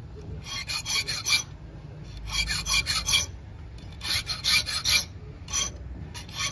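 Hand file rasping across a steel hacksaw blade clamped in a bench vise, in bursts of several quick strokes with short pauses between the bursts.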